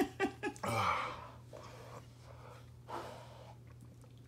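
A man exhaling hard in a long sigh about a second in, then breathing out more faintly twice, reacting to the burning heat of a very hot chili chip in his mouth.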